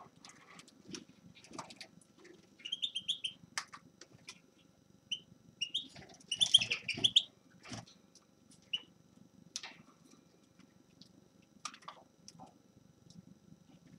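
A small finch giving short chirping calls in two quick clusters, about three seconds in and again near the middle, with scattered sharp clicks between them.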